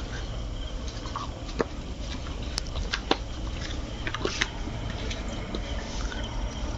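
Walking and handling noises: scattered light clicks and taps, about five in the first half, over a steady low hum.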